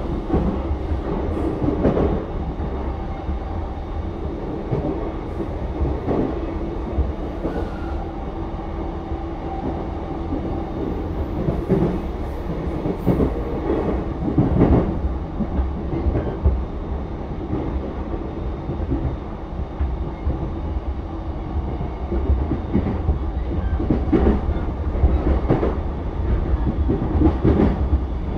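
In-car running noise of a JR East E233-7000 series motor car with Mitsubishi IGBT-VVVF traction equipment at speed. A steady low rumble of the wheels on the rails carries a faint hum, with irregular clacks from the track every few seconds.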